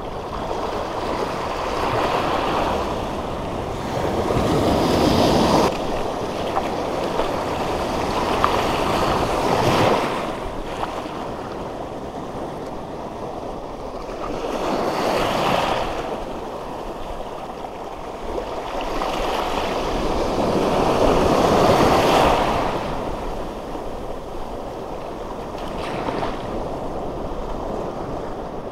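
Small waves washing in over a shallow reef flat, the surf swelling and ebbing in slow surges every five or six seconds.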